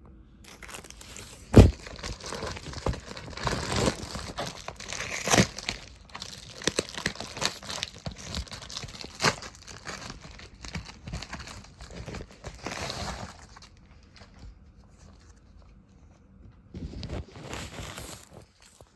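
Mail packaging being torn open and crumpled by hand: dense crinkling and tearing, with a sharp knock about a second and a half in, a pause, then a second short bout of crinkling near the end.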